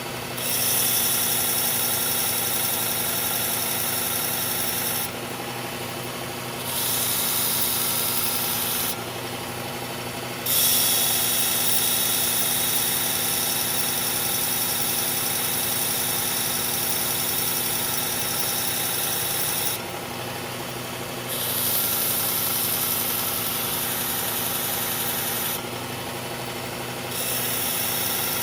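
Belt grinder running steadily while a hard-steel knife blade is ground on the belt in long passes, a bright grinding hiss that drops out briefly about four times as the blade is lifted and set back on. The blade is being reprofiled to 20 degrees to raise a burr.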